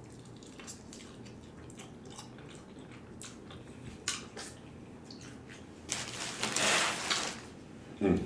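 Eating sounds: a few light clicks of a utensil against a takeout food container, then about a second of louder scraping noise around six seconds in, with a short vocal sound at the very end.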